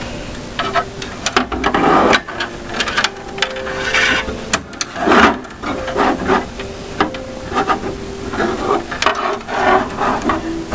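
Computer parts being handled and fitted into a PC case: irregular scraping and rubbing with scattered sharp clicks.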